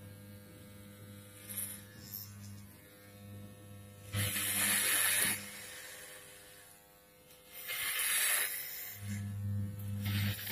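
Corded electric hair clippers buzzing with a steady low hum. Twice, about four and eight seconds in, they turn louder and harsher for about a second as the blades cut through hair.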